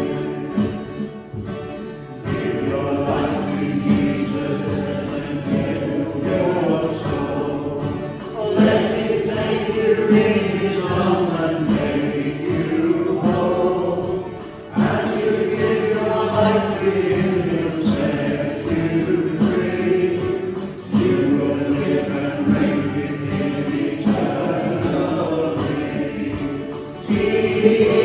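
Church congregation singing a hymn together, in phrases of about six seconds with a short breath between each.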